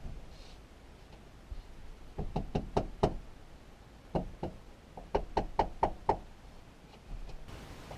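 Wood being knocked, as floor-base pieces are tapped into place. Quick sharp knocks come in three runs starting about two seconds in, roughly four or five knocks a second.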